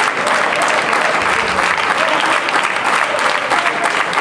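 A small crowd of spectators applauding, many hands clapping steadily and densely.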